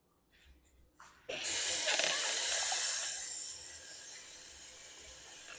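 Food sizzling in a hot pan: a loud hiss that starts suddenly just over a second in, then eases off gradually and stops abruptly near the end.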